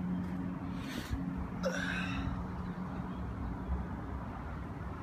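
Honda B20 engine idling through an aftermarket header and muffler with no silencer or resonator: a steady low exhaust hum, with a short hiss about a second in.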